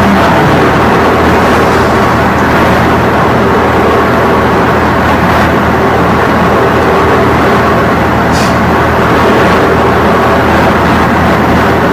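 Loud, steady rumbling noise with a low hum underneath, unchanging throughout.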